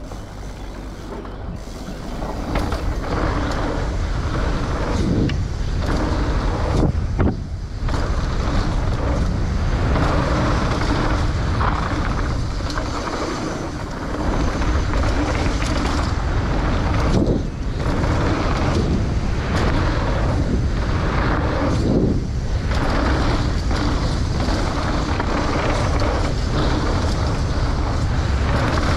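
Mountain bike riding fast down a dirt trail: a steady rush of tyre noise and wind buffeting the helmet-camera microphone, with a deep rumble underneath. The noise dips briefly a couple of times.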